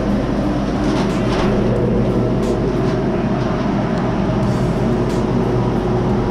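An electric blower running steadily: a constant motor hum over rushing air.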